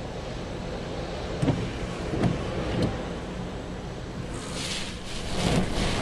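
Storm wind and waves breaking on a seawall: a steady low rumble with a few dull thumps, then about four seconds in a rising hiss of wind and spray.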